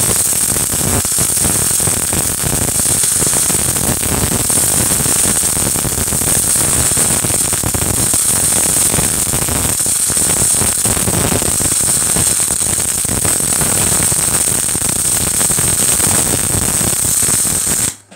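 Oerlikon 3000T MIG/MAG welding arc laying a bead on steel plate: a steady, loud crackle that cuts off suddenly at the very end as the arc is stopped.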